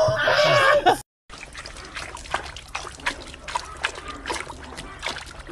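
A person's loud voice for about the first second. After a short break, a golden retriever puppy splashes about with its muzzle in a bucket of water, making an uneven run of small splashes.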